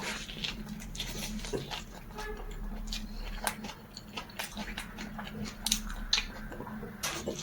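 Close-up chewing and biting of food, a run of irregular short wet clicks and smacks.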